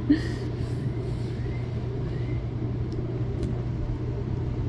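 Steady low hum and rumble with no clear events: constant background noise from an unseen source.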